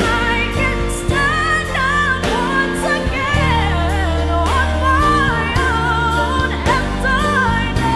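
A woman singing a pop ballad with melismatic vocal runs over band accompaniment of sustained bass and drums.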